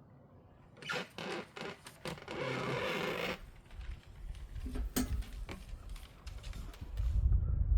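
Locking tabs of the dragon's tail sections being worked together by hand: a run of clicks, a rasping scrape that lasts about a second, then a sharp click and low handling bumps. The tabs do not hold, releasing even when fully locked.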